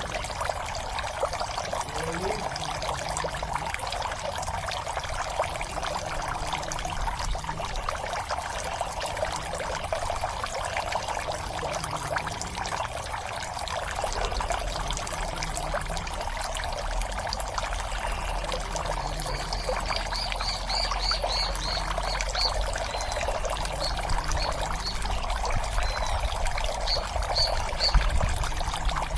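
Water steadily pouring and splashing into a pond. A short run of rapid high chirps sounds about two-thirds of the way in, and again briefly near the end.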